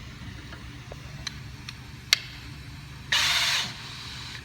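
Spin-spin rivet nut installation tool: a sharp click about two seconds in, then its motor whirs briefly for about half a second, spinning a Plusnut onto the tool.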